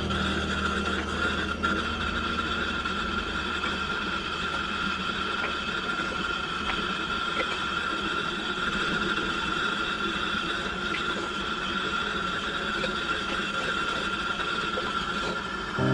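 Propane flamethrower torch burning steadily in a firebrick forge: a continuous rushing noise with a steady high tone running through it.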